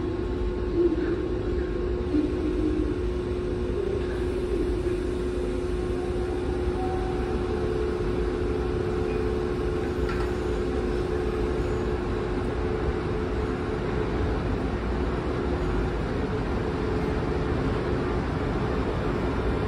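Steady hum and low rumble of a passenger train beside an underground station platform, with a steady tone that fades out about sixteen seconds in.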